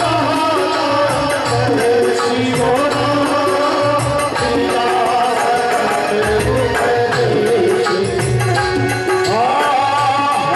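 Live Indian devotional bhajan music: a male voice singing over held instrumental notes and a steady hand-drum rhythm, with the voice sliding up into a held note near the end.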